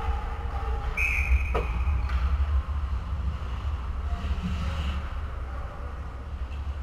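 An ice hockey referee's whistle blows once, a short steady blast about a second in, followed by a sharp knock. A low rumble of rink noise runs underneath.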